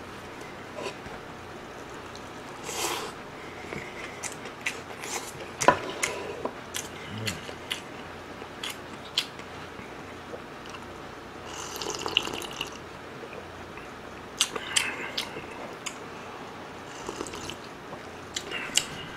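Close-miked mouth sounds of eating and drinking: wet clicks and smacks of chewing. In the middle come sips and swallows from a small cup.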